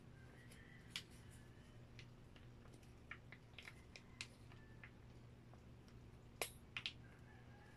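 Scattered small clicks and crackles from a plastic cheese-sauce squeeze pouch with a twist cap being handled and opened, the sharpest clicks coming in a quick cluster a little after six seconds in.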